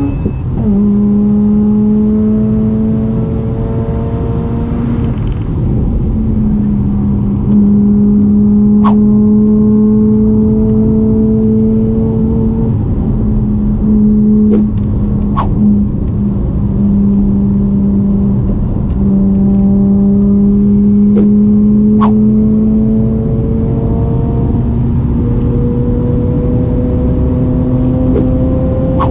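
Mazda RX-8's two-rotor Wankel rotary engine, heard from inside the cabin, pulling hard on track. Its pitch climbs slowly through long stretches in each gear and drops suddenly at the upshifts. Several sharp clicks come through over it.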